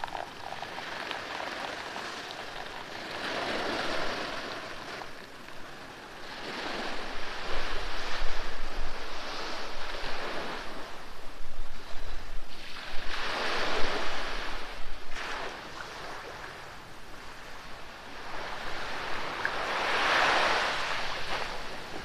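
Sea waves breaking and washing onto the shore, the surf swelling and easing every few seconds.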